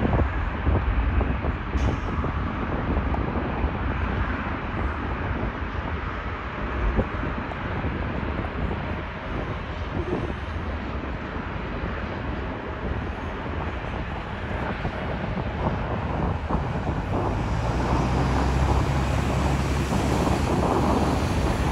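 Wind noise on the microphone mixed with road traffic from cars passing, growing somewhat louder toward the end.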